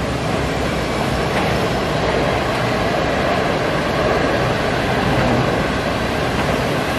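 Passenger coaches of a train rolling past at speed: steady wheel-on-rail running noise that holds even throughout.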